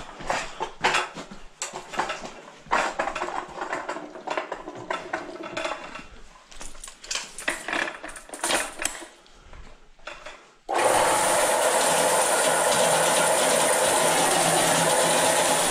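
Steel drain-snake cable clanking and rattling as it is handled for about ten seconds. Then, about eleven seconds in, the electric motor of an Electric Eel Model C sewer machine switches on suddenly and runs steadily.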